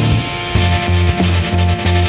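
Background music with a steady pulsing bass beat.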